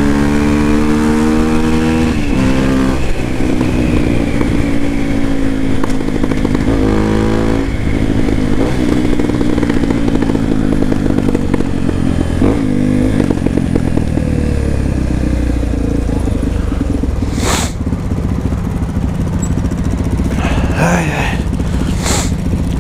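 Honda XR250 Tornado's single-cylinder four-stroke engine under way, heard from the rider's seat. Its pitch drops sharply three times in the first half, then runs lower and steadier as the bike slows into traffic, with two short sharp sounds in the last few seconds.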